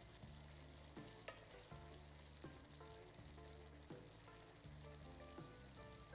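Chicken fillets and mushrooms sizzling and simmering in a red-wine sauce in a frying pan, a steady hiss with a light click now and then, over soft background music.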